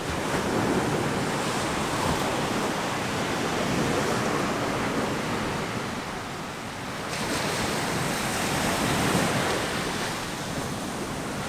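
Ocean surf breaking on a sandy beach: a steady rushing wash that eases off slightly around the middle and swells again.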